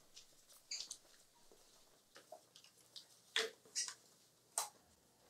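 A quiet room with a few faint, irregular clicks and taps, two slightly louder ones in the second half.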